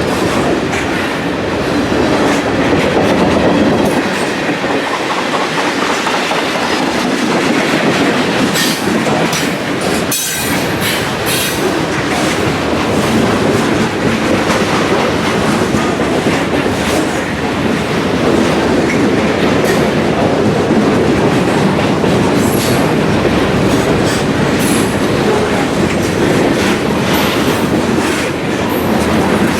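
Railroad cars rolling past close by: a steady rumble of steel wheels on the rails, with clicks over the rail joints and a few brief high wheel squeals in the second half.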